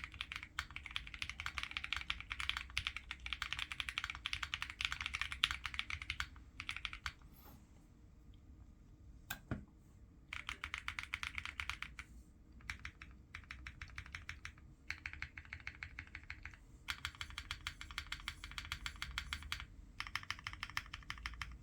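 Typing on a Gingko65 mechanical keyboard with Boba U4T tactile switches lubed with 205g0, PBT keycaps and all its foams fitted. Fast runs of keystrokes in bursts, with a longer pause about a third of the way in broken by a single key press.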